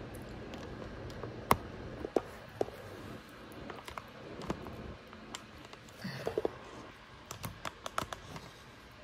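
Light clicks and knocks of kitchen utensils and dishes being handled, irregularly spaced, a few with a brief ringing clink, and a quick run of clicks about three-quarters of the way through.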